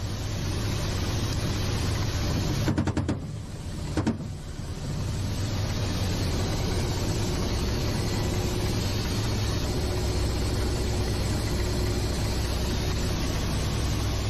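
Ka-52 attack helicopter heard from inside the cockpit: a steady, loud engine and rotor drone. A few sharp knocks come about three and four seconds in, with a brief dip in the noise.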